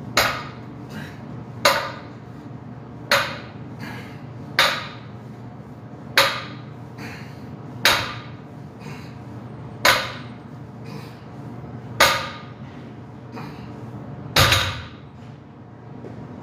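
Barbell loaded with 315 lb set down on a rubber floor mat on each deadlift rep: nine heavy clanking thuds with the plates rattling, coming more slowly toward the end, the last one the heaviest.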